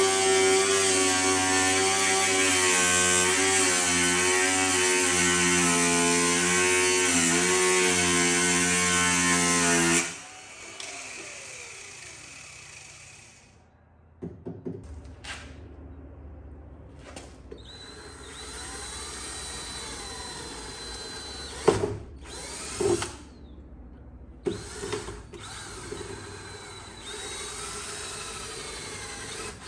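Power drill running steadily under load with a slightly wavering pitch, stopping abruptly about ten seconds in. After that come quieter handling sounds and a few sharp knocks.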